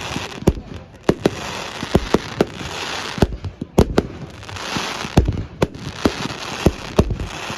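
Fireworks going off: a rapid, irregular run of sharp bangs, more than a dozen, with crackling and fizzing between them.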